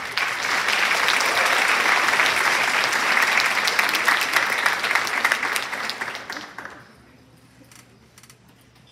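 Large audience clapping in applause. It starts abruptly, holds strong for about six seconds, then dies away over the next second.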